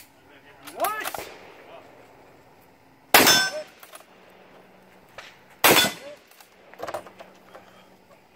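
Tikka T3 bolt-action rifle shots a few seconds apart, with a metallic ring of steel targets. The two loudest shots come about three seconds in and halfway through, with lighter reports about a second in and about seven seconds in.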